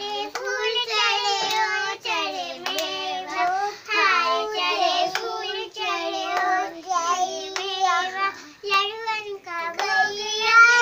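A child singing a song, with hand claps keeping time about once a second.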